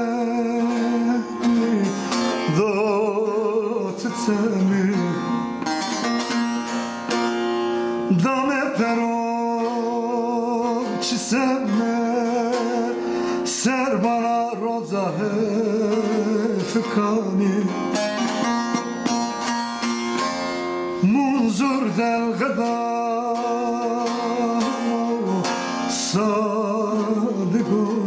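A man singing a slow folk song in long, ornamented phrases with wavering vibrato, over a plucked string instrument.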